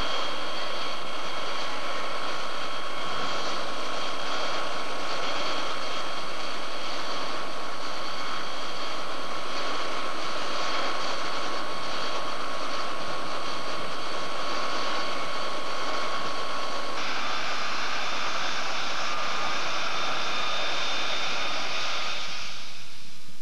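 Light turbine helicopter running on the ground: a steady turbine whine over loud rotor and engine noise. About three-quarters through, the whine tones give way to a rougher rushing noise, which cuts off just before the end.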